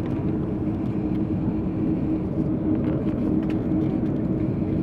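Airbus A330 cabin noise while taxiing: a steady engine and airframe hum with a constant low drone tone running through it.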